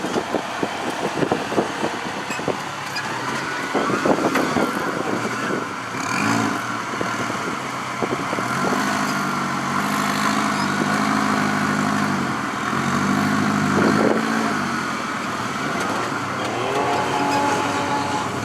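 Rock crawler buggy's engine revving in repeated rising and falling surges, with sharp knocks and clunks in the first few seconds.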